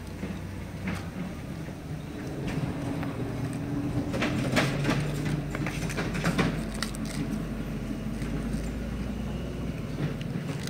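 Cabbage leaves being torn by hand and cut with a small kitchen knife over a plastic tub: crisp crackling and snapping, busiest in the middle. Under it runs a low steady motor hum that swells and then eases.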